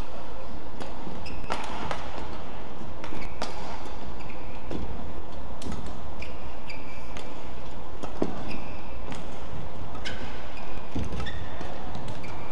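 Badminton rally: rackets striking a shuttlecock with sharp, irregular hits a second or few apart, and short high squeaks of shoes on the court mat, over a steady low hum of the hall.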